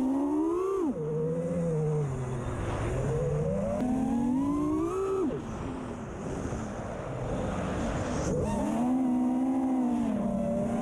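FPV quadcopter's brushless motors and propellers whining, the pitch rising and falling with throttle: quick climbs about a second in, around five seconds in and near the end, with dips and steady stretches between.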